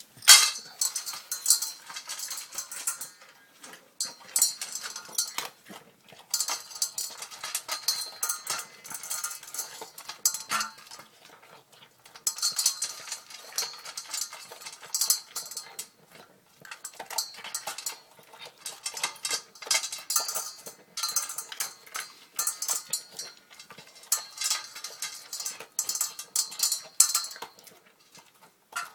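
Small Chihuahua/Italian Greyhound mix dog wolfing down food from a bowl: rapid clicking and clattering against the bowl in bursts of two to four seconds, with brief pauses between.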